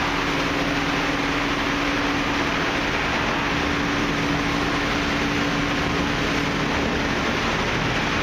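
Tunnel car wash machinery running: a loud, steady rushing noise with a low hum under it.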